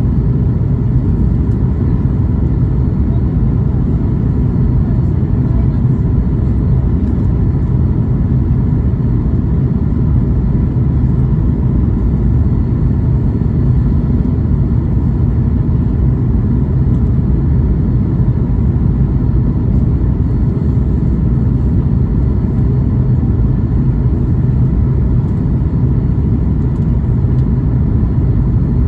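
Steady low rumble inside the cabin of a Boeing 737 MAX 8 airliner, the even roar of airflow and engines, with faint steady tones above it and no change in level.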